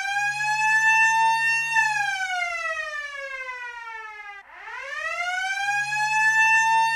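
A siren wailing: its pitch rises and holds near the top until about two seconds in, slides down, then winds up again from about four and a half seconds in.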